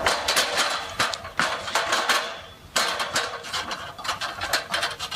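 Metal ladder clattering and rapid irregular clicking as it is set against a station sign and climbed, with a short lull partway through, played over a hall's loudspeakers.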